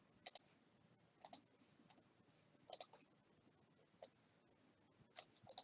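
Faint computer mouse clicks, mostly in quick double clicks, five times about a second apart.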